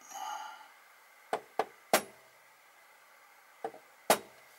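Small hammer tapping a transfer punch to mark the screw-hole positions on an engine cylinder block: two light taps and a sharper strike, then the same again about two seconds later.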